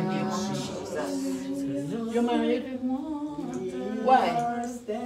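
Unaccompanied singing voice, with long held notes that slide up and down in pitch.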